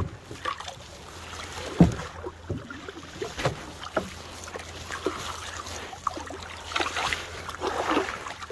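A canoe being paddled: irregular knocks of the wooden paddle against the canoe's hull, roughly one every second, with the loudest about two seconds in, over the light swish of the strokes in the water.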